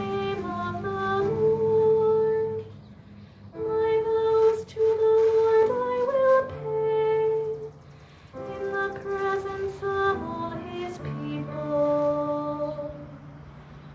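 Slow, hymn-like music on a keyboard: a melody of long held notes over sustained low chords, in phrases with brief pauses about 3 and 8 seconds in.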